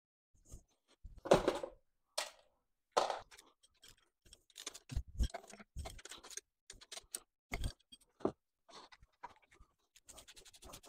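Hand-tool work on the aluminium inlet manifold studs of a C20LET engine: a few metal clanks as M8 nuts and washers go on. Then quick runs of clicks from a socket wrench on an extension as the nuts are run down and tightened.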